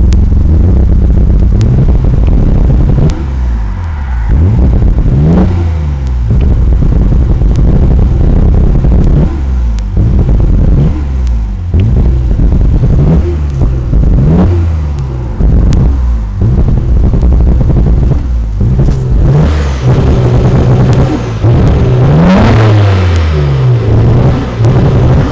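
Nissan Skyline GT-R's twin-turbo straight-six idling and being blipped again and again, each rev rising briefly and falling back, with a longer rev near the end and scattered sharp pops. It is running with misfires that the owner is trying to diagnose.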